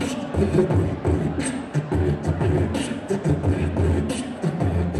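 Hip hop beat with a deep pulsing bass and sharp, irregularly spaced high percussive hits, playing between rap verses.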